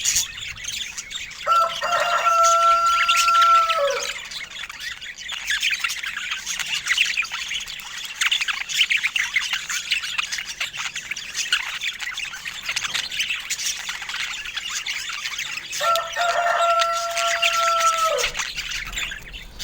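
Budgerigars chirping and chattering rapidly without a break. Twice, a long steady call of about two seconds rises above the chatter and ends in a downward slide.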